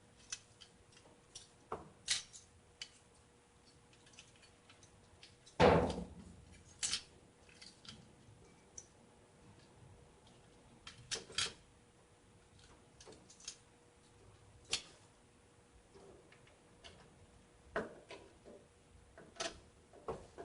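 Hands fitting a CPU cooler onto a motherboard: scattered light plastic and metal clicks and knocks, with one louder thump about six seconds in.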